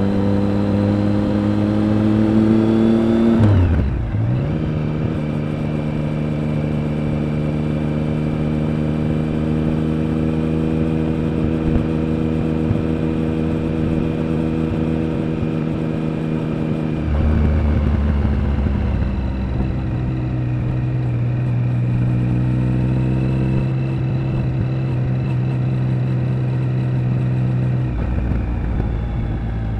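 Triumph Speed Triple 1050's inline three-cylinder engine and exhaust on the move. The revs climb for the first few seconds, then drop sharply at a gear change, and the engine holds a steady cruising note. The note shifts again about 17 seconds in and once more near the end.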